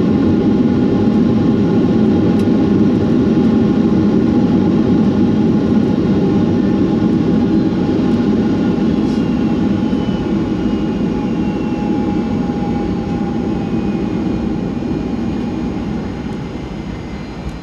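Cabin noise inside a Boeing 757-232 rolling out on the runway after landing: a steady rumble of its Pratt & Whitney PW2000-series engines and the airflow that slowly fades as the jet slows. Faint whines falling in pitch come in during the second half.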